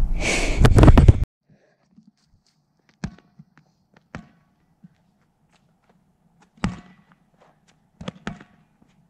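Loud rubbing noise from the rubber four-square ball pressed against the microphone, cutting off sharply about a second in. Then the rubber playground ball bounces on an asphalt street about five times, each a short, sharp knock, the last two close together.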